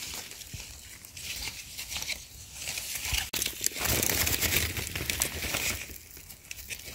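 Crinkling and rustling with many small crackles and snaps: handling noise while wild mushrooms are picked. A sharp click comes a little over three seconds in.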